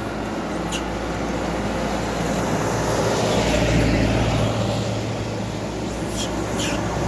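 Motor vehicle engine running with road traffic noise, swelling louder about halfway through as a vehicle passes, with a few brief sharp high sounds near the start and near the end.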